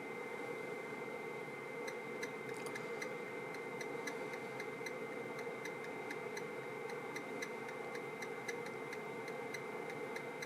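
Amp dyno test bench running under a bridged 4-ohm power test: a steady whirring noise with a faint steady high tone, and from about two seconds in, light ticks at a few per second.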